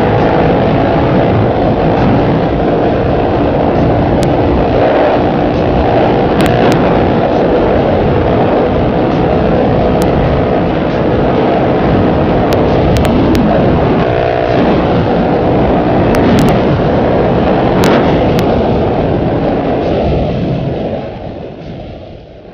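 Motorcycle engine running at road speed under heavy wind buffeting on the bike-mounted microphone, with its pitch shifting briefly about two-thirds of the way through. The sound fades out near the end.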